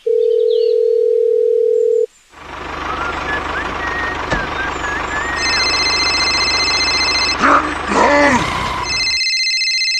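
A steady telephone tone for about two seconds, cut off sharply. Then a tractor engine runs with a low, even rumble. About halfway through, a phone starts ringing over it with a rapid electronic trill, and the ring carries on after the engine stops near the end.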